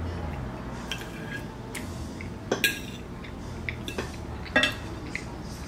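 Knife and fork clinking and scraping on a ceramic plate while cutting food, with scattered sharp clinks, the loudest about two and a half and four and a half seconds in.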